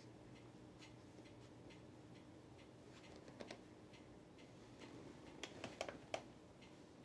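Kitten-heel pumps grinding crumbled pineapple cake on a tile floor: faint crunching and small clicks of the heel tips against the tiles. There are a few sharper clicks a little past three seconds in and a louder run of clicks just before the end.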